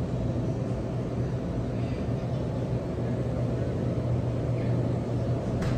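Steady low hum of supermarket refrigerated display cases and ventilation, with one brief click near the end.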